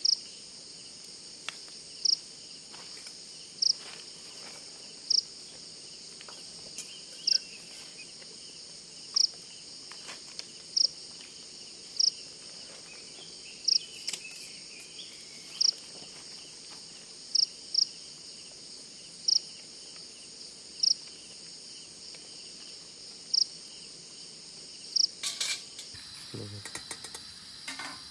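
Forest insects, crickets, keeping up a steady high-pitched trill, with a short, loud, high chirp every one and a half to two seconds. Near the end there is a brief clatter of knocks and rustling.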